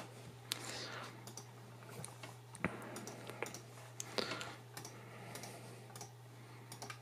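Scattered quiet clicks of a computer mouse, roughly one every half second, over a steady low hum.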